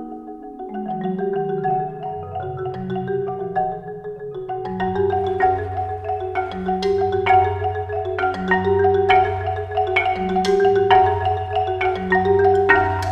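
Marimbas played by a percussion trio. Low rolled notes move step by step beneath a steadily repeated higher note, and from about four and a half seconds in, sharper mallet strikes join and the playing grows louder.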